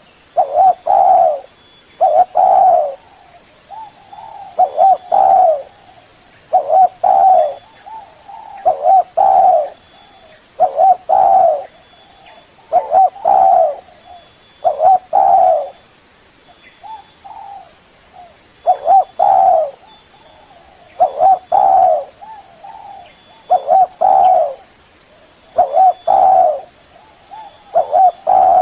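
Spotted dove cooing over and over: low, hooting coo phrases about every two seconds, with softer notes between them.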